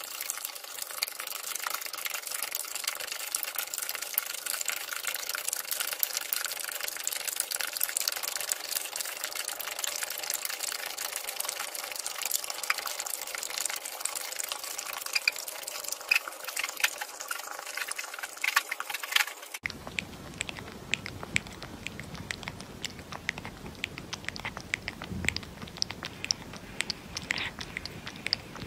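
A dog eating kibble soaked in liquid from a plastic bowl: wet slurping with many small clicks over a steady hiss. About two-thirds of the way through, the sound changes abruptly to sharper wet clicks, a puppy lapping milk from a small cup.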